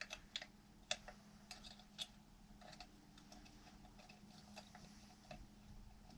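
Faint, irregularly spaced light clicks, about a dozen, of a hex wrench being worked on the screws of a chainsaw muffler, over a faint steady hum.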